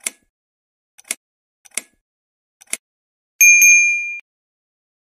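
Subscribe-animation sound effects: four sharp mouse-style clicks, about a second apart, then a bright notification-bell ding struck twice that rings for under a second.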